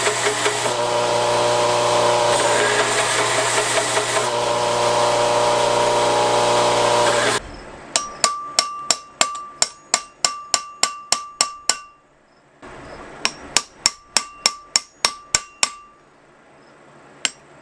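A power tool runs steadily, then cuts off suddenly about seven seconds in. Then a hammer strikes a steel punch with quick ringing blows, about four a second, in two runs with a short pause and a few more near the end, punching out the end of a knife's tang.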